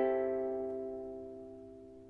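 A ukulele chord ringing out, several strings sounding together and fading away steadily.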